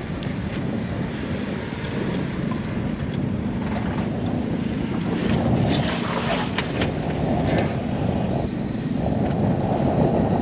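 Off-road vehicle engine running steadily on a dirt trail, with wind buffeting the microphone and a few short knocks and clicks about halfway through.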